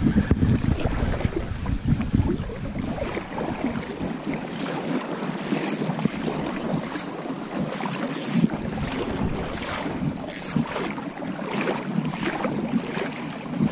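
Wind buffeting the microphone over the steady rush of river water, with a few brief high rasps around the middle.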